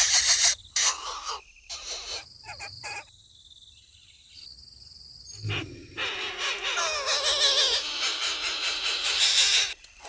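Greater coucal nestling's harsh, hissing begging calls in bursts as it is fed. They break off for a couple of seconds in the middle, then return louder and longer near the end.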